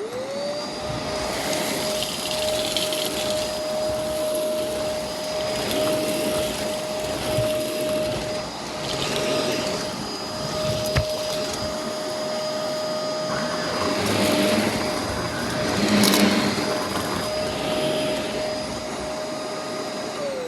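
Shark upright vacuum cleaner switched on, its motor whine rising as it spins up, then running steadily while it is pushed back and forth over a rug, with the suction noise changing from stroke to stroke. It is switched off at the end, and the whine falls away as the motor winds down.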